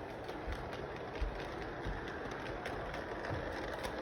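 A train running along its track: a steady rushing rumble with scattered clicks and a few low knocks.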